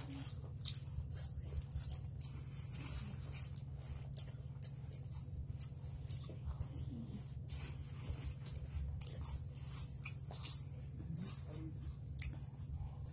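Snack-chip bag crinkling and crackling in irregular bursts as hands dig into it, over a steady low hum.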